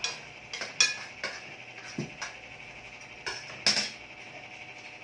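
Metal utensils clinking and knocking against cookware and dishes: about eight sharp, irregular clinks, two louder ones about a second in and near the end, a few ringing briefly.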